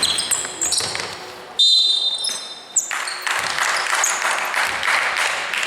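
Indoor basketball game play in a large hall: sneakers squeaking on the court and the ball bouncing. About a second and a half in there is a long, shrill high tone lasting about a second, followed by a stretch of dense court noise.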